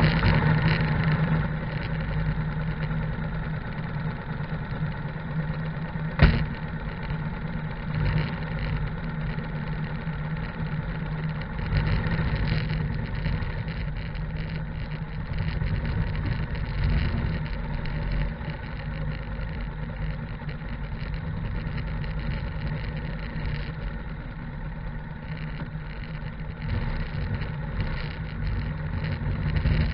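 Harley-Davidson V-twin motorcycle engine running just after being started, with one sharp clunk about six seconds in, then pulling away and riding, the engine sound swelling and easing with the throttle.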